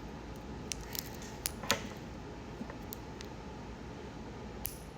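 Scattered light metallic clicks and clinks of wristwatches being handled, about seven in all, the loudest a little under two seconds in, over a steady low hiss.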